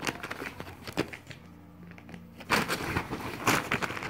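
Plastic tarp and fabric play tunnel crinkling and rustling under Pomeranian puppies' scrambling paws, in quick crackles, with a short lull in the middle and a denser burst of crackling after it.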